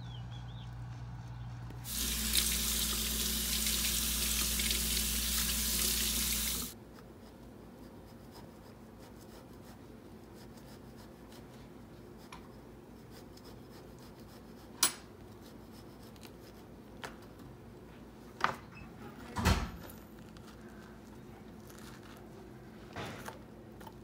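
A kitchen faucet running into a sink for about five seconds, starting a couple of seconds in and shutting off abruptly. Afterwards a few separate sharp knocks as a knife cuts into the squash on a plastic cutting board.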